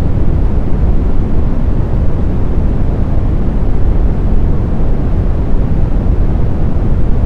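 Steady, deep brown noise: an even hiss weighted heavily toward the low end, with no tones, rhythm or changes.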